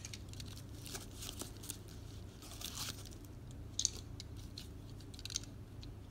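Packaging being unwrapped by hand: faint, scattered crinkles and crackles of plastic wrap, a little busier about halfway through.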